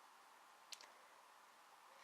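Near silence: faint room tone, with two faint clicks in quick succession about three-quarters of a second in.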